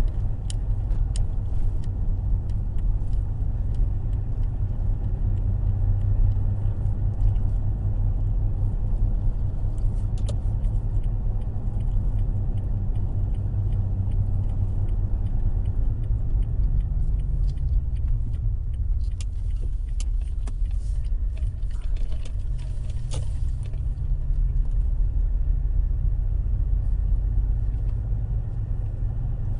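Toyota Tacoma pickup on the move: a steady low rumble of road and drivetrain, with scattered small rattling ticks that come thicker about halfway through. The rattle or squeak seems to come from the rear passenger side, a source the owner has not found; he wonders whether the truck bed has worked loose since it was removed for body repairs.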